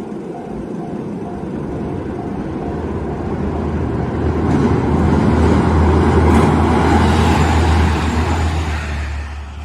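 A train passing through a Japanese railroad crossing: a heavy rumble builds to a peak and drops away sharply near the end. The crossing's warning bell clangs over and over at first, then is drowned out.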